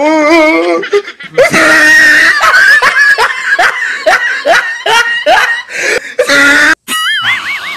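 Laughter sound effect: a loud, quick run of laughs, about three a second, lasting several seconds, ending in a short warbling whistle-like tone near the end.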